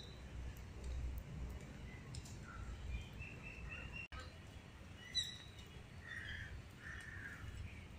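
Birds calling several times, the loudest about five seconds in, over a low steady rumble.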